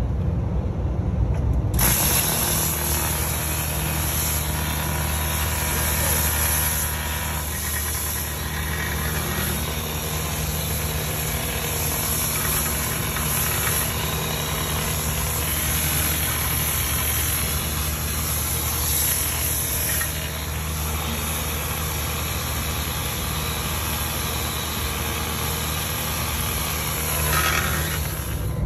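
A machine switched on about two seconds in, running steadily: an electric motor hum under a strong, even hiss.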